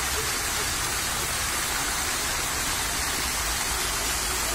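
Fountain water splashing: a tall central jet and a ring of arching jets falling into a basin, giving a steady rush of falling water.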